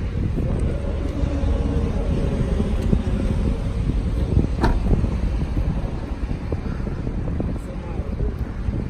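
Wind buffeting a phone microphone outdoors: a steady low rumble, with one sharp click or knock about four and a half seconds in.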